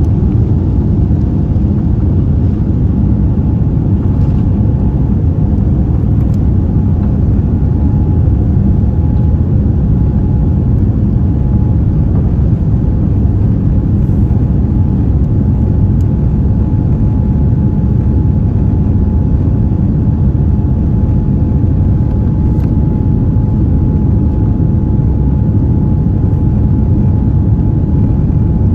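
Cabin sound of a Boeing 787-9's GEnx engines at takeoff thrust through liftoff and the initial climb: a loud, steady rumble. A thin, steady whine comes in about eight seconds in.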